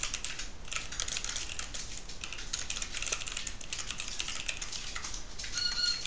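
Typing on a computer keyboard: a busy patter of key clicks. Near the end, a brief steady high-pitched call from a bird in the background.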